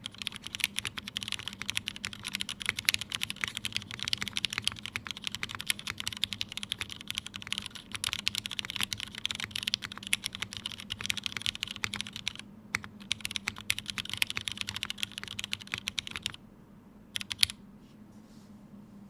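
Fast, continuous typing on a Tomo mechanical keyboard with lubed Cherry MX Black linear switches in an aluminium top-mount plate, under GMK Serika keycaps: a dense run of key clacks. The typing pauses briefly about two-thirds of the way through, stops about three seconds before the end, and a couple of last keystrokes follow.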